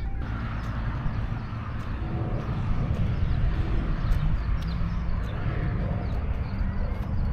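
Steady outdoor background noise with a heavy low rumble, a faint steady hum and scattered small ticks.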